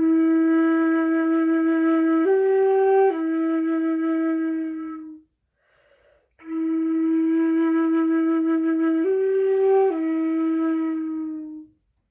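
A flute plays the same slow phrase twice with a short gap between: a long held note, a brief step up a few tones, then back down to the first note, which fades away.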